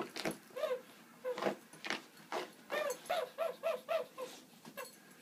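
Small dog giving short, high yips and whines as it play-bites at a shoe, with a quick run of about five yips around three seconds in. Faint clicks are scattered between the calls.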